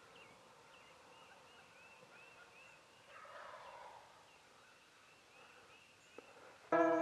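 A wild turkey gobbles once about three seconds in, over faint, repeated bird chirping. Near the end, loud guitar music starts.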